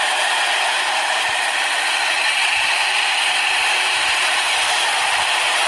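Steady, even rattling mechanical noise, like a vehicle engine sound effect.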